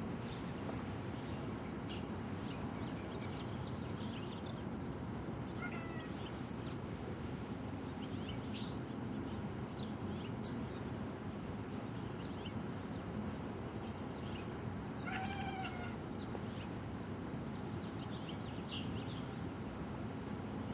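Domestic cat chirping at birds: a few short chirps, the clearest about six seconds in and another around fifteen seconds in, over a steady background hiss.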